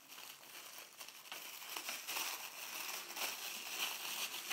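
Thin clear plastic bag crinkling as fingers untie and open it, with many small crackles, getting louder about a second in.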